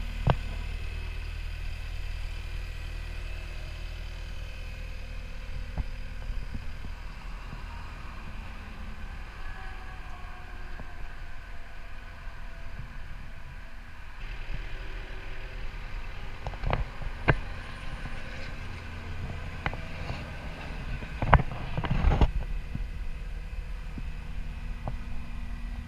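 Caterpillar 259D compact track loader's diesel engine idling steadily, with a few sharp metallic clunks and knocks in the second half.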